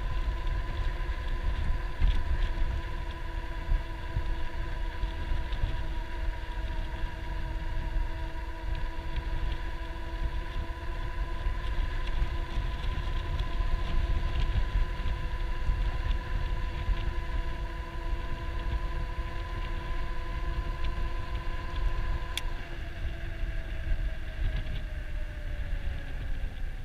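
Electric bike hub motor whining steadily while cruising, over wind rumble on the microphone. About 22 seconds in there is a click, the highest note of the whine cuts out, and the rest falls in pitch as the bike slows for a stop.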